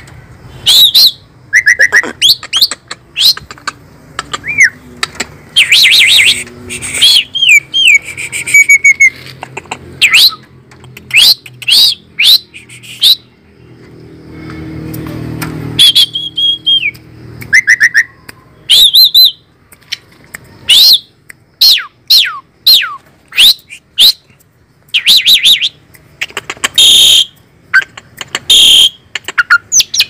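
Javan pied starling (jalak suren) calling loudly: a rapid string of sharp whistles, chirps and chattering notes, many of them sweeping up or down in pitch. About halfway through there is a short lull, filled by a low hum.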